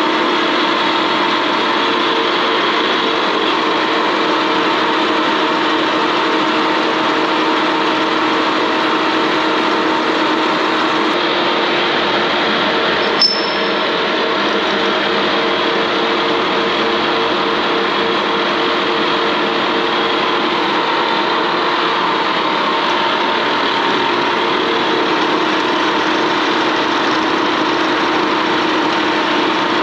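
Lucas horizontal boring mill running under spindle feed, a 1-inch end mill cutting into thick steel plate: a steady machine drone with several constant tones. One sharp click about halfway through.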